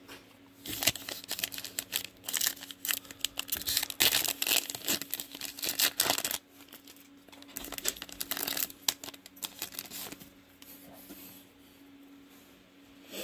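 A trading-card pack's foil wrapper being torn open and crinkled: about six seconds of dense crackling, then lighter rustling that dies away.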